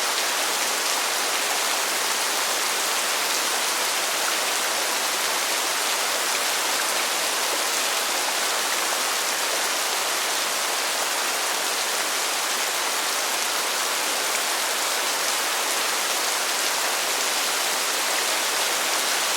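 Heavy rain pouring down in a steady, even hiss with no let-up.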